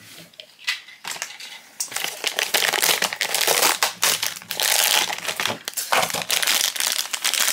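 Crinkling of a metallic foil blind-bag wrapper being handled and crumpled by hand. It starts about two seconds in, with a short pause near the end.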